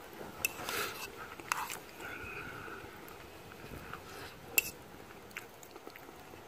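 Someone eating with a fork: soft chewing and three light clicks of the metal fork against the bowl, the sharpest about four and a half seconds in.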